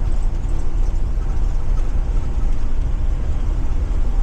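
Ford 7.3 L gasoline V8 of a Blue Bird Vision school bus running while driving, a steady low rumble mixed with road noise inside the cab.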